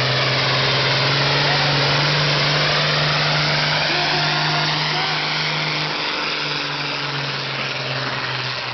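Diesel pulling tractor's engine running flat out under full load while dragging a weight-transfer sled: a loud, steady engine drone under a dense roar. It eases off slightly in the second half as the tractor moves away down the track.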